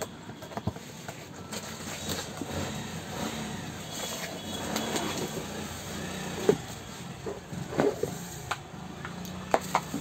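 Cardboard box and bubble-wrap packaging rustling and crinkling as an unboxed electric kettle's base is handled, with scattered sharp clicks and knocks.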